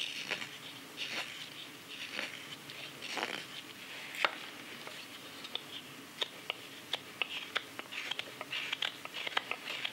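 Straight carving knife cutting into green, wet wood: short scraping slices about once a second at first, then quicker, sharper clicking nicks of the blade in the second half.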